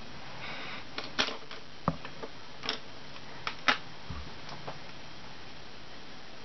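A string of about ten sharp clicks and taps from small objects being handled, loudest about a second in and again near the middle, with a soft low thump just after, over a steady hiss.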